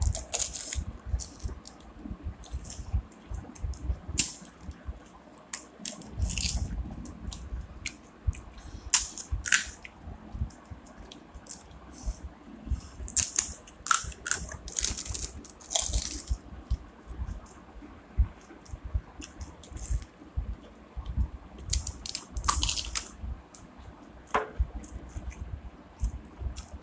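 Two people eating phuchka (pani puri): crisp puri shells cracked open with a finger, filled and crunched, with chewing and moist squishing in between. Short irregular clicks and crackles throughout, with light knocks of fingers and bowls on the table.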